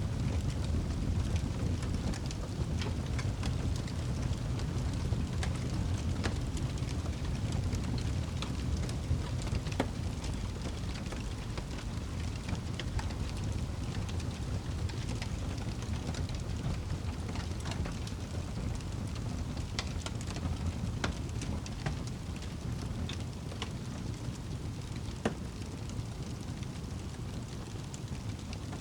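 Wood fire burning in a fireplace: a steady low rumble of flames with frequent sharp crackles and pops of burning wood.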